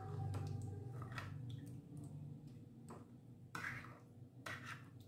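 Metal spoon stirring yeast, sugar and warm milk in a small ceramic bowl to dissolve the yeast, with a few faint, irregular clinks of the spoon against the bowl.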